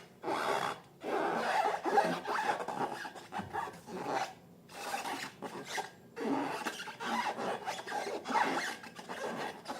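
Slime being handled and squished by hand: irregular sticky rasping and crackling bursts, with brief pauses.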